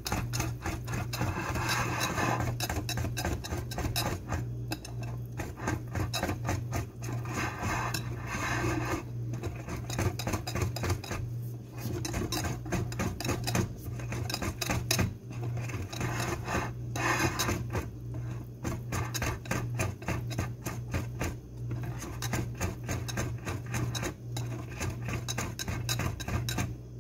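Wire whisk beating a runny brown-flour batter in a glass bowl: fast, continuous clicking and tapping of the wires against the glass, broken by short pauses every few seconds. A steady low hum runs underneath.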